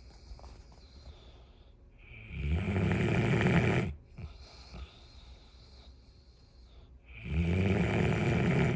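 Bloodhound snoring: two long, loud snores about five seconds apart, each lasting roughly a second and a half, with only faint sound between them.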